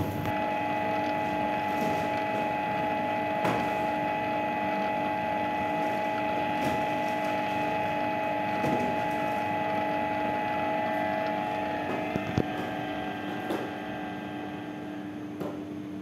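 Electric stand mixer running with its dough hook kneading bread dough in a steel bowl: a steady motor hum and whine with a few knocks, growing quieter about twelve seconds in.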